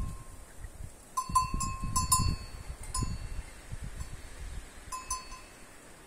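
A metal bell on a bull's neck collar clanking as the animal moves: a quick run of rings about a second in, one more near three seconds, and a couple about five seconds in. Beneath it are low thuds of hooves shuffling in dry straw and dirt.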